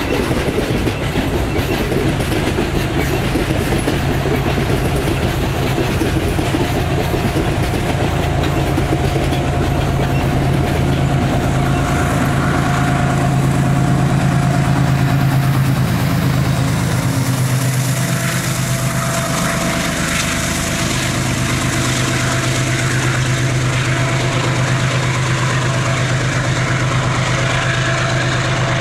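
Diesel-electric freight locomotives running with a train of wagons: a steady low engine drone with a faint high whine over it. The sound shifts once, about two-thirds of the way through.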